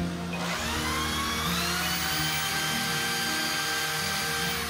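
Cordless drill spinning up about half a second in, running at a steady whine as the bit bores into cement, then winding down at the end. Background music plays underneath.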